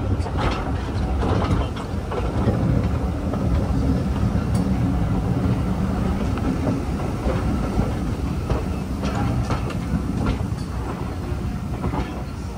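A railway train rolling along the track: a steady low rumble, with irregular sharp clicks from its wheels passing over the rail joints.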